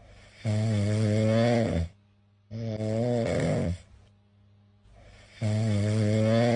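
Cat snoring: three long, low, buzzing snores, each a little over a second, with a short pause between the first two and a longer one before the third.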